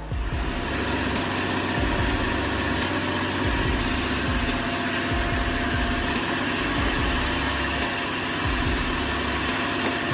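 Heavy forestry machine's engine running steadily, a constant hum and hiss.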